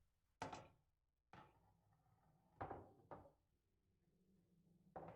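A pool shot: billiard balls clicking sharply against each other, with a handful of separate clicks spread out over several seconds.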